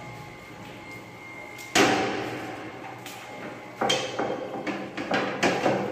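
Hard plastic knocks and clatters from a toilet lid being handled and wiped down, echoing off bathroom tile. There is one sharp knock about two seconds in, then a quicker run of lighter knocks from about four seconds on.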